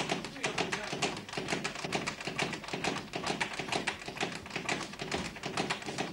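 A fast, continuous patter of sharp taps and slaps from boxers training in a boxing gym, at about seven or eight taps a second.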